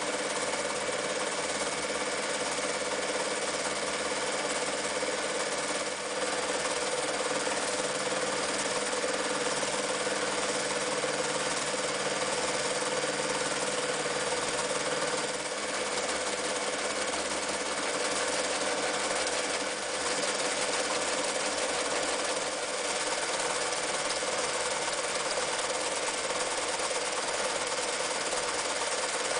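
Janome New Home 552 electric sewing machine running steadily, sewing decorative stitches through fabric, its motor and needle mechanism running at an even pace.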